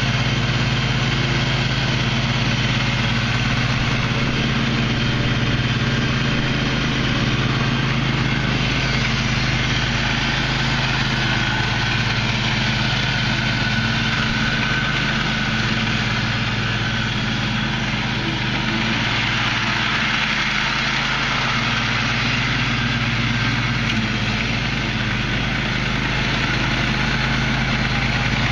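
Engine of a Husky 22 HP riding lawn mower running steadily at a constant speed.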